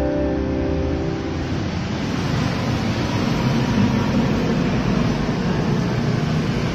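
Steady street noise from passing road traffic, an even rushing hiss with no distinct events.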